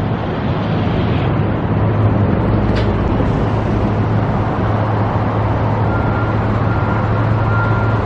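Steady low drone of vehicle engines with a rushing hiss over it, and one short click about three seconds in; a faint thin whine comes in about six seconds in.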